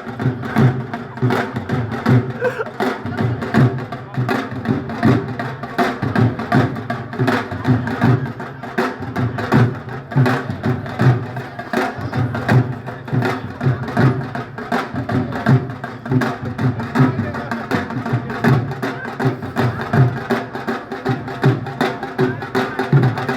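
Street band playing live, with percussion keeping a steady beat under sustained pitched instruments.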